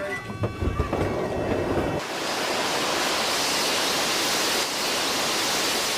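A couple of seconds of low rumbling commotion, then a steady, even rushing hiss that starts abruptly about two seconds in.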